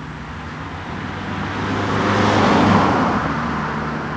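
A car passing by, its noise swelling to a peak a little past halfway and fading again, over a steady low hum.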